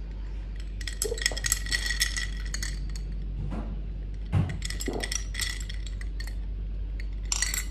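Ice cubes clinking against the sides of a glass jar of iced coffee as a straw stirs them, in scattered clusters of clinks about a second in, again midway and near the end.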